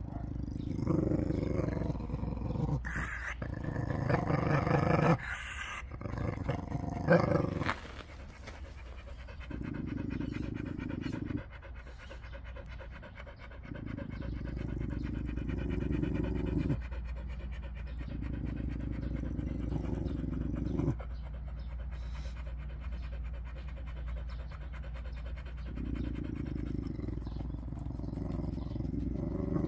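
Dog panting close by in stretches of a few seconds with short pauses, after a louder, busier start.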